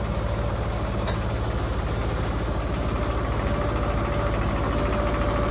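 Wood-Mizer LT28 portable sawmill's engine idling steadily, with one short sharp click about a second in.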